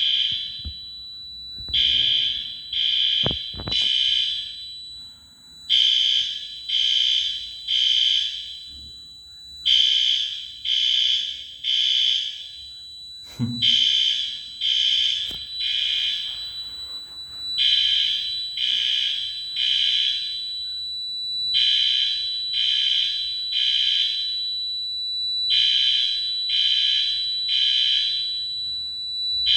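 Building fire alarm horns sounding in the three-pulse temporal evacuation pattern: three beeps, a pause, repeating about every four seconds, set off by a fire alarm system test. A few faint knocks about three seconds in and near the middle.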